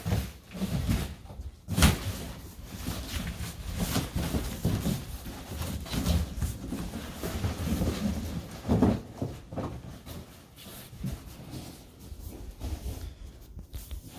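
Irregular knocks, thumps and rustling of a large boxed mattress being handled and moved, with a sharp knock about two seconds in.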